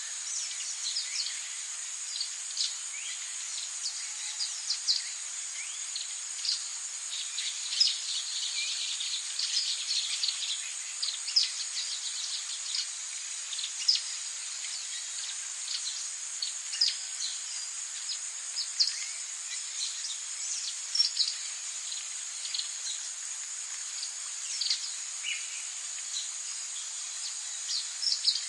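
Forest ambience: a steady high-pitched insect drone, with many short bird chirps and calls scattered over it.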